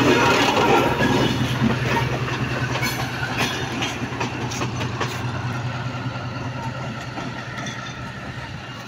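A Pakistan Railways ZCU-20 diesel-electric locomotive running light passes beneath and pulls away. Its steady low engine drone fades as it goes, and a few sharp wheel clicks over the rail joints come about three to five seconds in.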